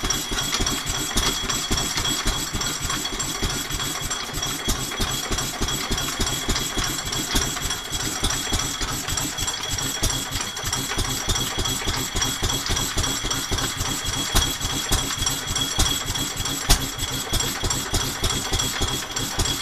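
A vintage stationary engine runs with a fast, even beat, driving a Fortuna power hacksaw through a long flat belt while the saw works back and forth.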